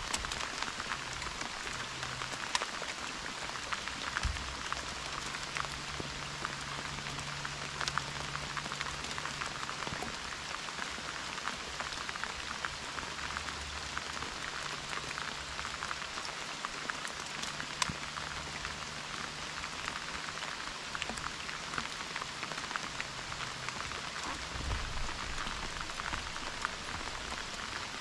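Steady rain falling on a lake and an open boat, a dense hiss of many small drop hits. A faint low hum sits underneath from about four seconds in until near the end.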